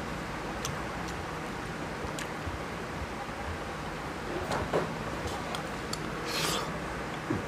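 Fingers rubbing and scraping on a glass plate, gathering up the last of the curry and rice, with a few light clicks. Near the end, a short burst of eating noise as the mouthful is taken.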